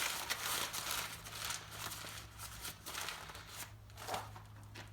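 Newspaper being crumpled into a ball by hand, a papery crinkling in irregular bursts that grows sparser toward the end.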